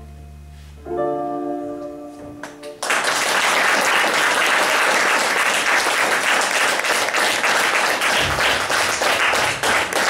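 A guitar band's last chord rings out about a second in and dies away, then an audience breaks into loud applause a little under three seconds in.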